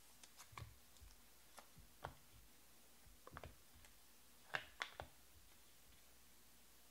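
Faint, irregular light clicks and taps, about a dozen, with the loudest pair about four and a half seconds in.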